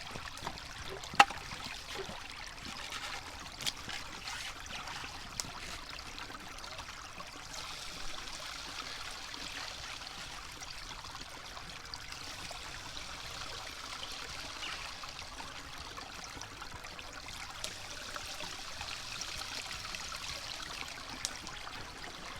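Creek water running steadily, a continuous rushing trickle. A few sharp knocks land in the first six seconds, the loudest about a second in.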